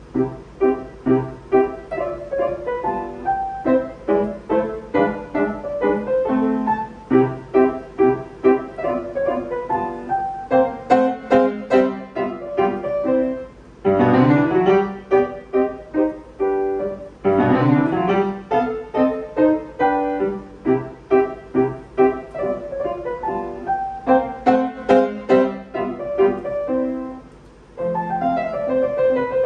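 Upright piano played solo: a lively piece of quick, detached notes with fast rising and falling runs in the middle, a brief break near the end, then the playing resumes.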